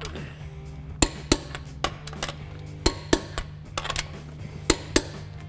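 Click-type torque wrench clicking as wheel lug nuts are torqued to 110 foot-pounds, the socket clinking on and off the nuts as it moves from nut to nut. Sharp clicks, several of them in quick pairs.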